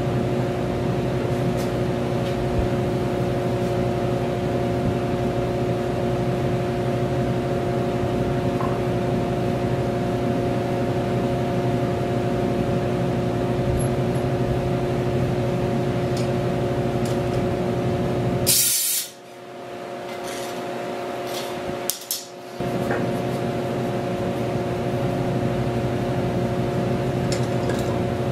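A steady machine hum with a few fixed tones over a noisy rush. About two-thirds of the way in, a short loud hiss sounds; the hum then drops away and builds back over about four seconds before returning in full.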